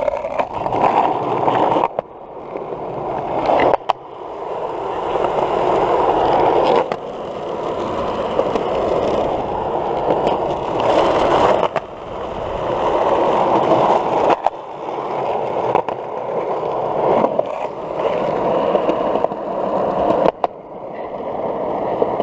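Skateboard wheels rolling over smooth concrete, a steady rumble heard close to the board that swells and fades, with a sharp click every few seconds.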